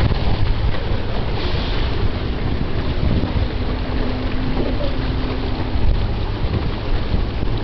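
Wind buffeting the microphone, a steady low rumble. A faint steady hum lasts about three seconds in the middle.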